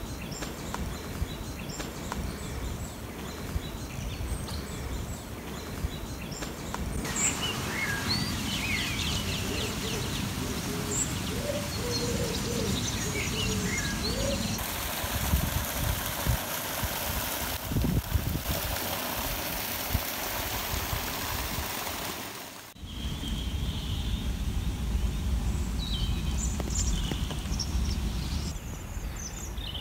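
Outdoor garden ambience: scattered birdsong chirps over a steady low background noise, the background changing abruptly several times where the clips are cut together.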